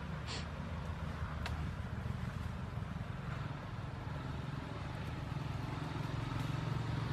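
Steady low rumble of a motor vehicle engine running, growing a little louder near the end.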